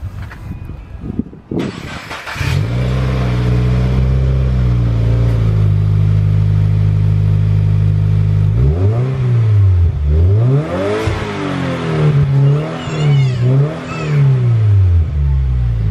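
2016 Subaru WRX's 2.0-litre turbocharged flat-four through a freshly installed Invidia N1 catback exhaust. The note jumps up to a steady idle about two and a half seconds in. From about nine seconds it is revved in about five quick blips, each rising and falling in pitch, then settles back to idle near the end.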